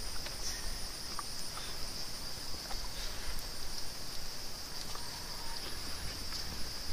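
Insects droning steadily in the background, a continuous high-pitched buzz with a fainter, rapidly pulsing chirp above it, and a few faint ticks.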